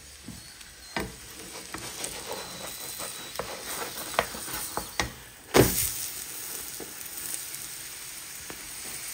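Aloo paratha sizzling and crackling on a hot tawa, with one louder knock a little past halfway.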